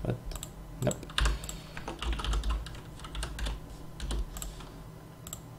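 Computer keyboard typing: scattered keystrokes in short, irregular runs, with a couple of louder ones about a second in and again around four seconds in.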